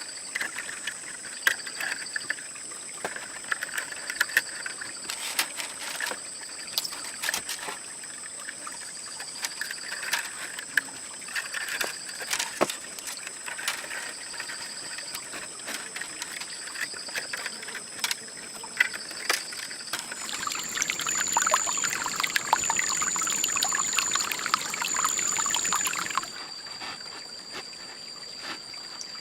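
Steady high insect drone with scattered sharp clicks and knocks of handling. About two-thirds of the way in, a louder stretch of trickling, pouring water starts and then cuts off suddenly.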